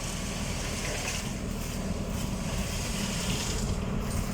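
Tractor diesel engine running steadily, driving a PTO-mounted transit concrete mixer drum.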